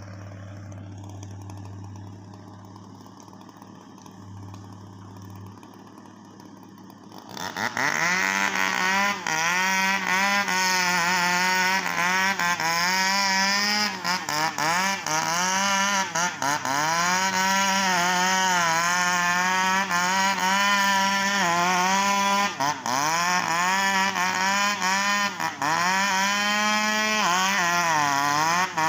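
A low, steady engine hum, then about seven seconds in a two-stroke chainsaw opens up to full throttle. Its pitch repeatedly sags and recovers as the chain bogs under load cutting into a sengon tree trunk.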